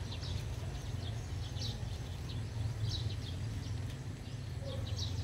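Birds chirping in short repeated calls over a steady low outdoor rumble.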